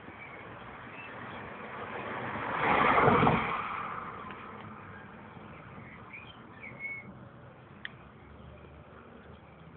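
A swell of noise that builds, peaks about three seconds in and fades away over the next two seconds, followed by a few short high chirps and a single click near the end.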